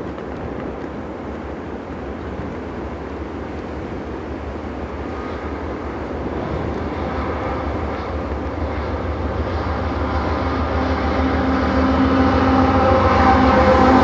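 Canadian Pacific freight train's diesel locomotives approaching and drawing alongside, their engine drone growing steadily louder and clearer, over a low rumble of blizzard wind.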